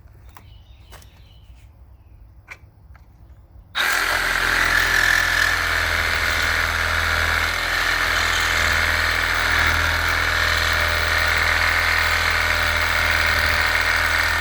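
A handheld power tool starts about four seconds in and runs steadily at full speed, cutting through a weld on the steel motorcycle frame, then stops at the end. Before it starts there are only a few light clicks of handling.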